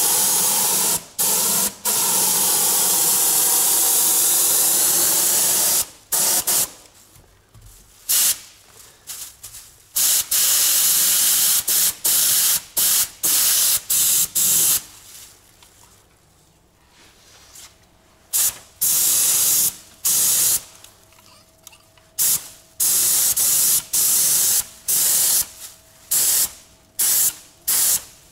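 Gravity-feed paint spray gun spraying primer. A continuous hiss of air and atomised primer runs for about six seconds, then comes as a string of short bursts as the trigger is pulled and released for short passes, coming faster near the end.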